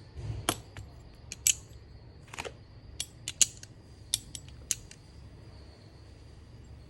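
Titanium-handled Fiore clone balisong being flipped for a sound test: a string of sharp, irregular metal clicks as the handles swing and close, dying out about five seconds in.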